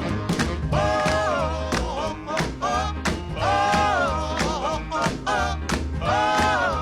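Background music: a song with a steady beat and bass line, with a lead line holding long notes three times, about two and a half seconds apart.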